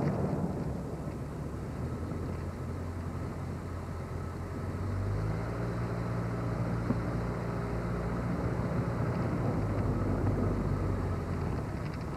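Car driving on a paved road, heard from inside the car: steady engine hum and road noise. A steadier low engine drone comes in about five seconds in and fades near the end.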